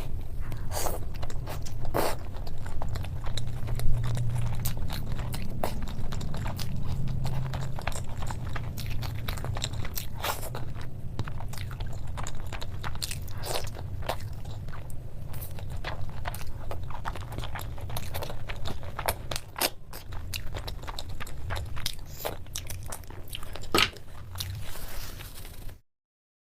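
A person chewing and biting food close to the microphone, with many small crunches and wet clicks scattered throughout. The sound cuts off suddenly near the end.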